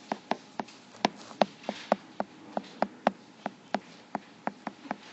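Stylus tapping and clicking on a tablet screen while handwriting: a quick, irregular run of sharp ticks, several a second.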